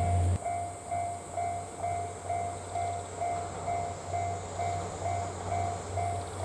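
Japanese level crossing alarm ringing a steady repeating electronic ding about twice a second. The low diesel rumble of the passing KiHa 48 railcars drops away sharply about half a second in.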